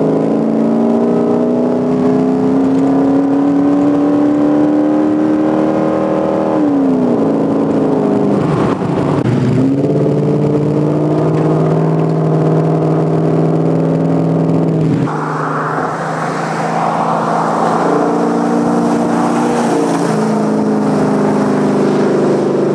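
Toyota Tundra prerunner's engine pulling under acceleration, its pitch rising steadily, then dropping back about seven seconds in and running steady. From about fifteen seconds a rushing noise joins the engine.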